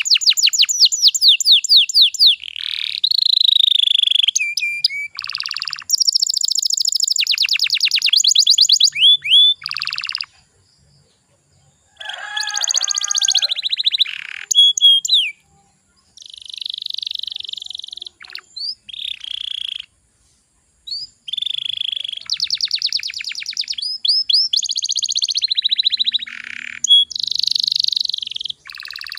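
Domestic canary singing: fast trills and rolled runs of high repeated notes, broken by a few short pauses.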